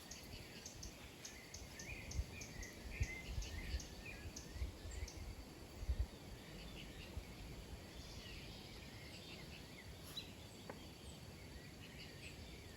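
Small birds chirping and twittering, with a quick row of short high ticks, about three a second, through the first few seconds. Some low thumps or rumbles come in the first half.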